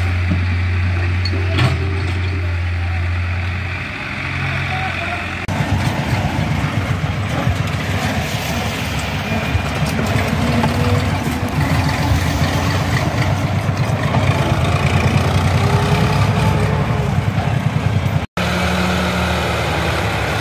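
Diesel tractor engines running. A steady low hum for the first five seconds or so, then a faster, rougher chugging from on board a moving tractor. Near the end a sudden cut switches to another tractor's engine.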